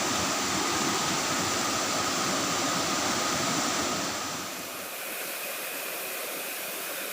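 Steady rushing of flowing water with a faint, even high-pitched whine over it; about four and a half seconds in the sound drops abruptly to a quieter, thinner rush.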